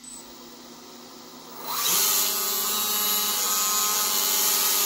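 Brushless electric motors of 1/10-scale RC outboard motors spinning up with a rising whine about a second and a half in, then running at a steady high speed with a loud whine, propellers turning in the air.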